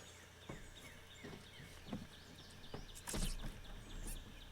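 Birds calling with many short falling notes, over a handful of knocks and clunks, the loudest about three seconds in.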